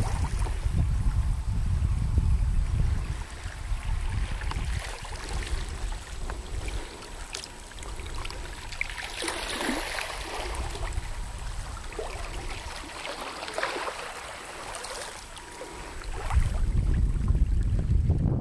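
White Sea water lapping and splashing in small surges, with wind buffeting the microphone at the start and again near the end.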